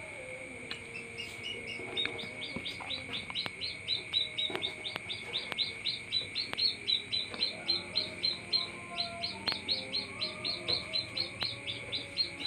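Domestic chicken chick peeping rapidly: short high peeps, about four a second, starting about two seconds in. Under it runs a steady high-pitched tone.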